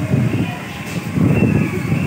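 Wind gusting across the phone's microphone, an uneven low rumbling buffet as a summer storm blows in.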